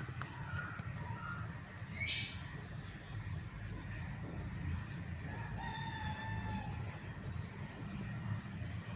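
A single short, high-pitched bird call about two seconds in, the loudest sound, then a faint thin whistled note around six seconds, over a steady high tone and low background rumble.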